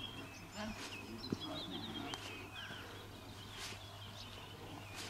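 Faint outdoor birdsong: scattered short chirps and quick trills, over a steady low hum.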